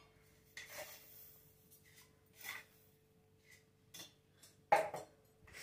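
Spoon and steel kitchen containers clinking and scraping in a few scattered knocks while sugar and tea leaves are spooned into a pot for tea; the loudest clatter comes near the end, over a faint steady hum.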